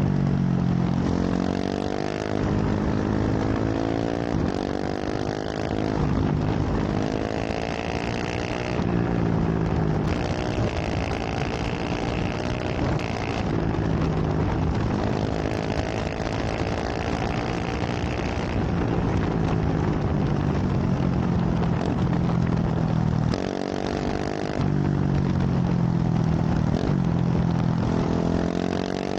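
KTM 690 SMC R single-cylinder engine through a full LeoVince exhaust, ridden hard: the revs climb, drop back at each gear change and climb again, several times over.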